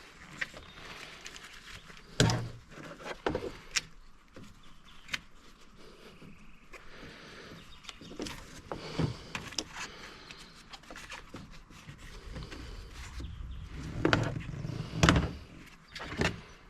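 Workshop handling noises: scattered knocks, clicks and rustling as parts and tools are handled, with the loudest knocks about two seconds in and again near the end.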